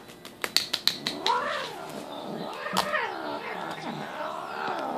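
Calico cat growling while it plays: long, wavering growls that rise and fall in pitch, one after another, after a quick run of sharp clicks in the first second.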